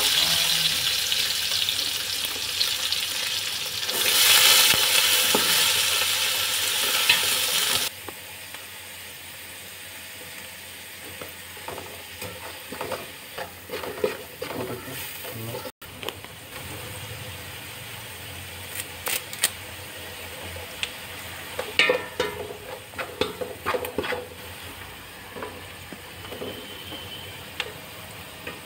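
Chopped onions sizzling loudly in hot oil in an aluminium pot; the loud sizzle cuts off suddenly about eight seconds in. After that the frying is quieter, with a wooden spatula scraping and tapping against the pot as the onions are stirred.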